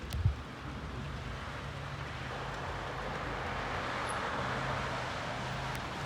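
Car engine running with a steady low hum, under a hiss that swells and eases as the tyres slip in snow.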